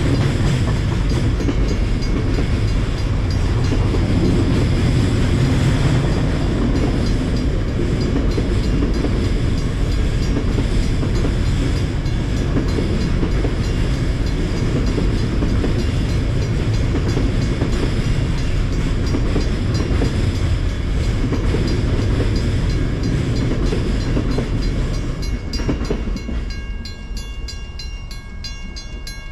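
Stainless-steel VIA Rail passenger cars rolling across a steel girder bridge: a steady noise of wheels on rails. It fades over the last few seconds as the end of the train passes.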